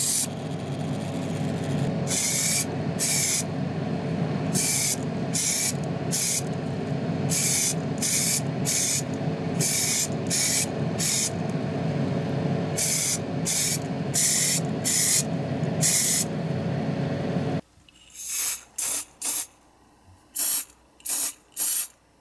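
Short hissing bursts of spray paint, mostly in pairs, over a steady motor hum in a spray booth. Near the end the hum stops and a few shorter, sharper noises follow.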